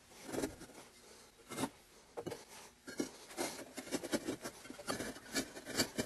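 Soft insulating firebricks being slid and set in place against one another and the sheet-metal frame: a run of light scrapes and taps, sparse at first and coming more often from about halfway through.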